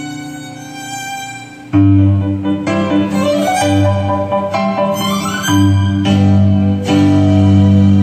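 String music: a violin melody over lower bowed strings. About two seconds in it turns louder and fuller, with deep bass notes underneath.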